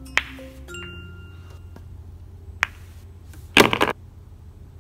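Pool balls clacking on a pool table: a sharp click shortly after the start, another about two and a half seconds in, and a loud rapid run of clacks a little over three and a half seconds in. Soft background music plays over the first second.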